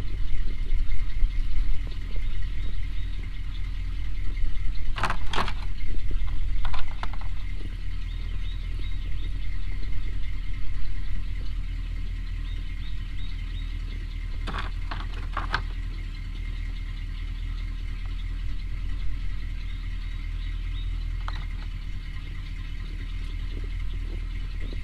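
Pickup truck engine idling steadily, with a few sharp metallic clanks and knocks now and then.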